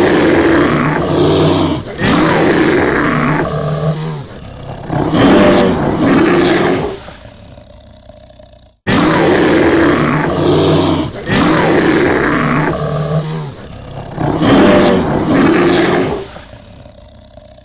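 Movie monster roars for a giant ape fighting a dinosaur: several loud, overlapping roars that fade away, cut off sharply about halfway through, then the same run of roars plays again.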